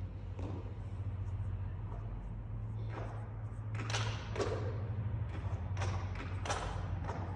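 Half a dozen scattered knocks and taps ringing out in a large, echoing hall, over a steady low hum.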